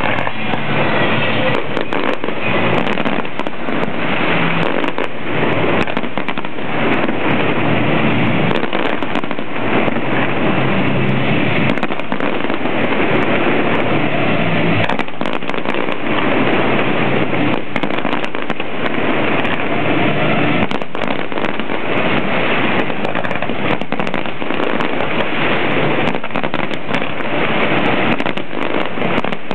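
Aerial fireworks shells bursting in quick succession: a loud, dense, continuous crackle broken by many sharp bangs.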